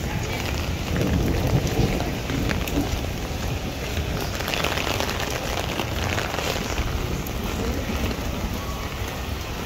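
Steady, fairly heavy rain falling on a paved street, with many small close drop ticks over a low rumble.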